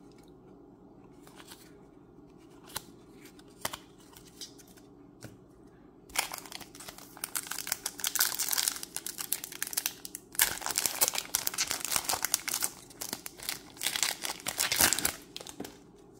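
A Magic: The Gathering booster pack's foil wrapper being torn open and crinkled, in two long bouts of dense crinkling starting about six seconds in, with only a few faint clicks before.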